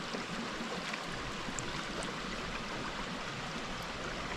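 Mountain stream water rushing steadily, an even hiss of moving water.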